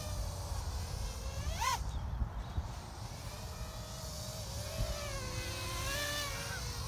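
Small 3-inch acro FPV quadcopter, 1105 6000 kV brushless motors on a 3S battery, whining as it flies, the pitch rising and falling with throttle. A sharp punch of throttle sends the pitch up and back down about one and a half seconds in, and it swells again about six seconds in.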